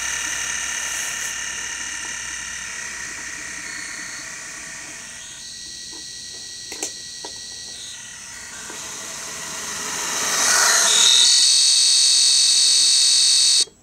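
HO-scale Athearn SD40T-2 model locomotive running on DC, its analog motor and gears giving a steady high-pitched whine. It fades as the locomotive runs away down the track, grows loud again as it comes back close, then cuts off suddenly near the end.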